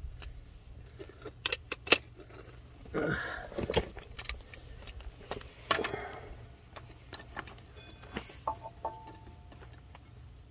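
Steel hand tools clinking and clicking as a socket on a long extension and a breaker bar are fitted onto a bolt, with a few sharp metal clicks and a brief faint ring near the end.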